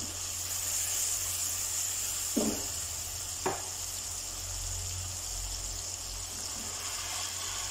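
Tomato, garlic and green-chilli masala sizzling steadily in hot oil in a kadai as it is stirred. Two short knocks about two and a half and three and a half seconds in.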